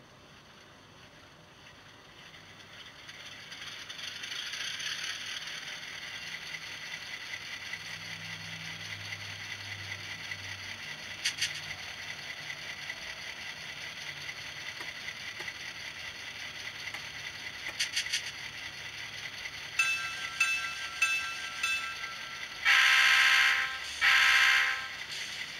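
Soundtraxx TSU-KN1 sound decoder playing through a small speaker in the fuel tank of a Kato N scale E8 diesel model: the diesel engine sound starts up a few seconds in and runs steadily, with two single clicks. Near the end comes a string of short tones, then two loud horn blasts.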